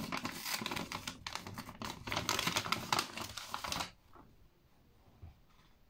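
Paper gift bag being handled and its sticker peeled open: a rapid run of small crackles and rustles that stops about four seconds in.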